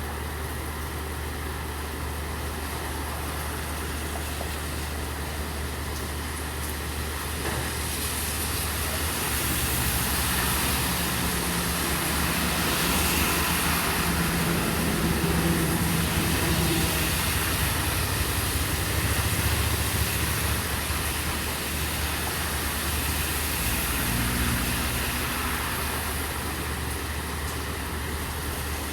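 Steady rain with a low engine hum under it; a vehicle passes on the wet street, its hiss of tyres through water swelling and fading through the middle, and a smaller swell follows near the end.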